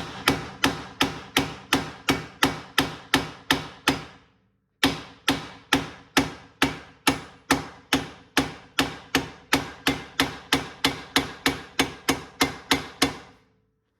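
Hammer blows struck through a block of wood against a front suspension part, driving it free: a steady run of about three ringing strikes a second. There is a short pause about four seconds in, then the hammering resumes and stops near the end.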